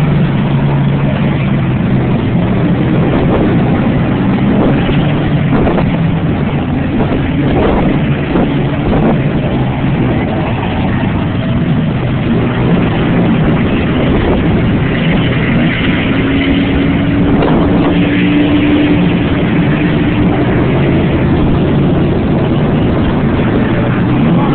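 Diesel engine of a crawler bulldozer running steadily under load while towing a stuck lifted Chevy Blazer out of the mud, a continuous low drone. A higher steady hum joins for a few seconds past the middle.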